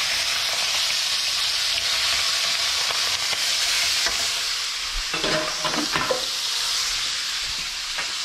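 Chicken thighs sizzling steadily as they sear in hot oil in a stainless-steel skillet. A few short, higher sounds stand out about five to six seconds in.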